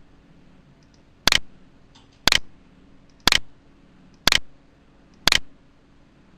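Computer mouse clicking: five sharp clicks about a second apart, with a few fainter ticks between them.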